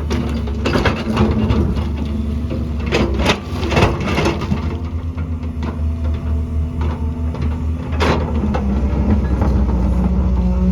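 Excavator's diesel engine running steadily under load, with bursts of scraping and knocking as the bucket works through rock and mud: about a second in, around three to four seconds in, and once more about eight seconds in.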